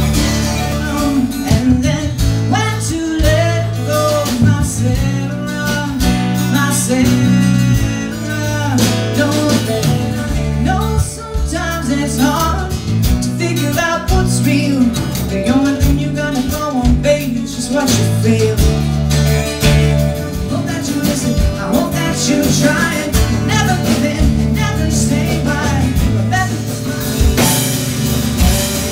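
Live band playing a country-blues song: a woman singing over strummed acoustic guitar, a guitar played lap-style with a slide, and electric bass.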